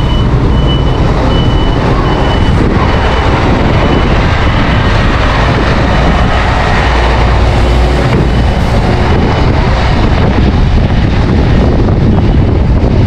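Strong wind buffeting the microphone with a loud low rumble, while a vehicle's reversing alarm beeps about twice a second and fades out about nine seconds in.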